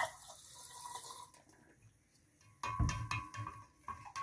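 A squeeze bottle squirting a stream of caustic soda solution into a large glass jar of salt water, with a hissing splash for about a second. About two and a half seconds in, a spoon starts stirring the jar, knocking and clinking against the glass in quick repeated strokes.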